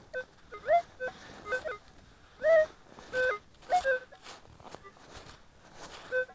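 Minelab Explorer SE Pro metal detector giving a string of short electronic beeps of changing pitch, some sliding upward, as its coil passes over a metal target under the snow. Snow crunches as it is dug out by hand between the beeps.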